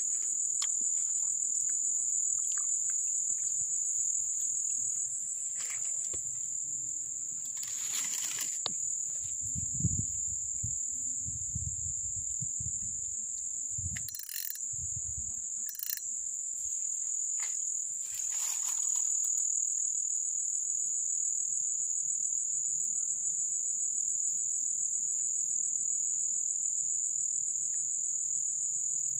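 A steady, high-pitched insect chorus, like crickets trilling, runs without a break. A few short rustles and some low rumbling near the middle come from the camera brushing through grass.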